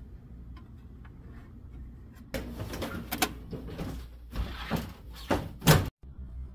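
A thin metal cover plate being slid and fitted over a PTAC air conditioner's control panel: scraping and rattling with several sharp clicks, the loudest near the end, after which the sound cuts off suddenly.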